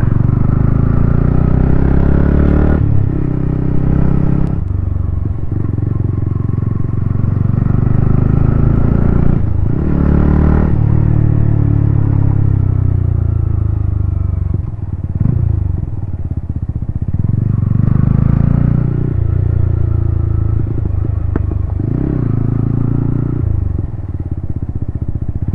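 Yamaha MT-15's 155cc single-cylinder engine running through a titanium Akrapovic exhaust. The engine pitch climbs and drops back again and again, with sudden falls like gear changes while riding.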